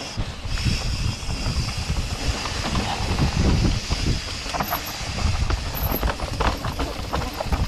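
Mountain bike running fast down a dirt and root forest trail, heard from the bike itself: a steady rumble of knobbly tyres over rough ground, with continual rattling and knocking from the frame, chain and suspension.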